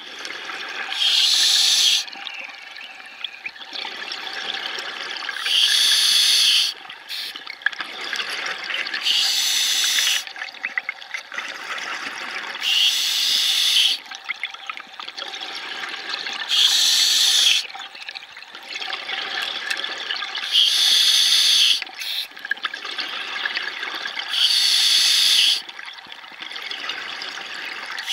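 Scuba regulator exhaust: a loud gush of exhaled bubbles about every four seconds, each lasting about a second, with a quieter hiss and crackle between breaths.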